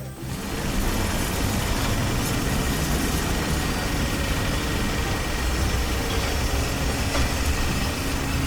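Heavy construction machine engine running steadily: a continuous low rumble with a faint steady hum.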